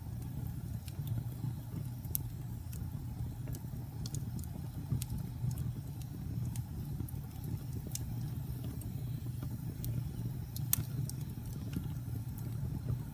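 Wood fire in a fireplace crackling: scattered sharp pops and snaps over a steady low rumble, with the loudest pop about eleven seconds in.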